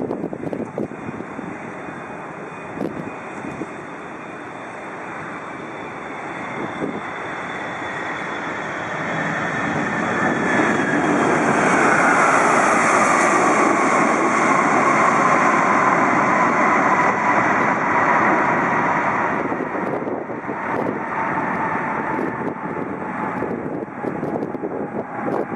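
Boeing 777-300ER's GE90 jet engines on final approach, growing louder as the airliner passes low and close, with a whine that falls in pitch as it goes by. The noise then eases a little and stays steady as the jet lands and rolls away down the runway.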